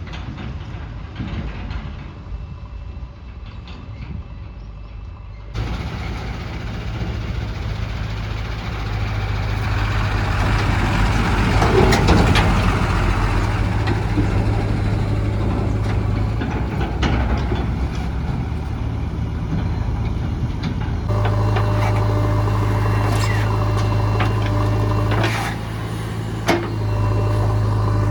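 Heavy diesel engines of a backhoe loader and a tipper truck running under load while digging and loading, the engine note swelling and easing. There are a few sharp knocks, and the sound changes abruptly twice, near the start and about three quarters of the way through.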